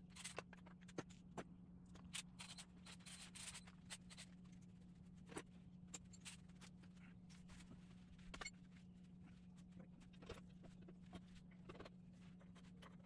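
Faint scattered clicks, light clinks and scrapes of hand tools and parts being handled, over a steady low hum.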